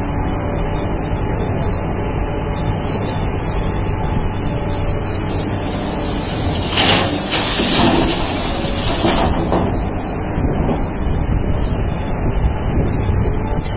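Kobelco SK380HD excavator's diesel engine running steadily under load as it digs and swings. About seven seconds in, a loud clatter of rock tipped from the bucket into the steel bed of a dump truck lasts two to three seconds.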